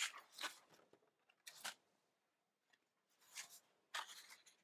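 Sheets of painted paper handled and slid over a table: a few short, faint paper rustles, one near the start, one about a second and a half in, and a cluster in the last second and a half.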